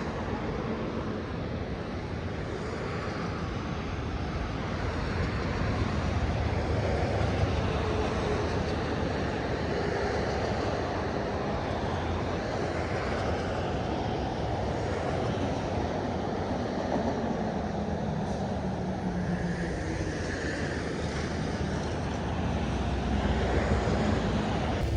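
Vehicle driving: steady engine and road noise.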